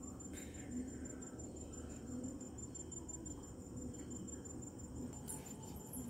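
A cricket chirping steadily in a high, rapid pulsing trill, over a low background hum, with a couple of faint rustles near the end.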